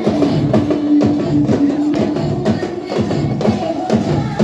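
Music dominated by loud, rhythmic drumming and percussion, with one held note for about two seconds near the start.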